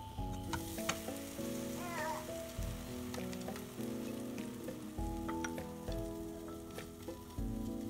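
Bread sizzling in butter in a frying pan, with scattered clicks and scrapes as a plastic spatula and chopsticks turn the slice over. Background music with steady notes plays underneath.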